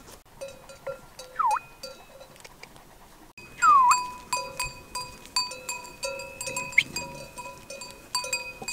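Bells on a grazing flock of sheep and goats clanking irregularly, many small overlapping ringing strikes. They become louder and busier about three and a half seconds in, where two brief falling tones can also be heard.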